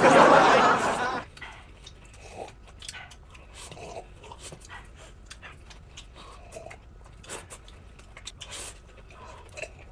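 A loud rush of noise for about the first second, then a dog panting and lapping, with small clicks and a few brief soft whines.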